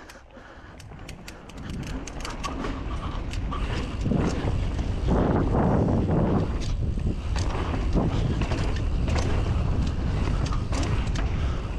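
Mountain bike riding fast down a dirt downhill trail: wind buffeting the camera microphone and tyres rumbling over the ground, with frequent sharp clicks and rattles from the bike over bumps. It grows louder over the first few seconds as speed builds, then holds steady.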